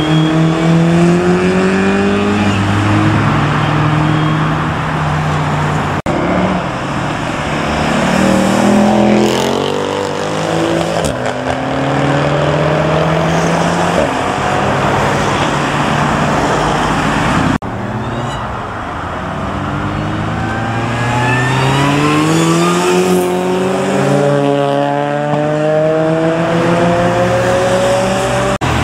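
Cars accelerating hard away along a dual carriageway, engine notes climbing in pitch again and again as they rev up through the gears, with tyre and traffic noise underneath; the sound breaks off abruptly a few times.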